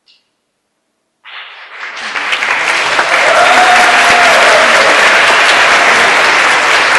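Silence, then audience applause that breaks out a little over a second in and quickly builds to loud, steady clapping at the end of the performance.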